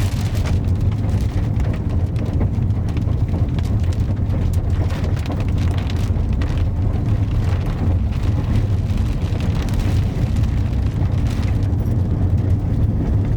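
Steady low rumble of a car being driven, heard from inside the cabin, with a light patter of rain on the car.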